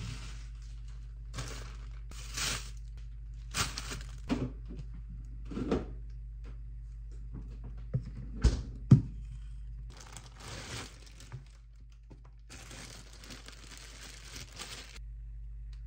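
Plastic food packaging and a bread bag rustling and crinkling as groceries are handled, with two sharp thunks about eight and a half seconds in as items are set down on a stone counter. A steady low hum runs underneath.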